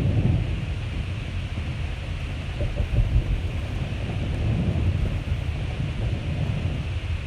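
Rainstorm: a steady hiss of rain over a strong, uneven low rumble.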